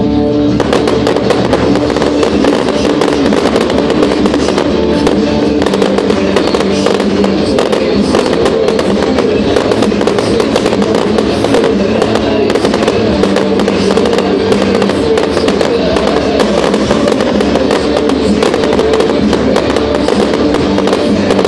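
Fireworks going off in rapid, continuous succession, a dense run of crackling reports with no pause, over loud music playing throughout.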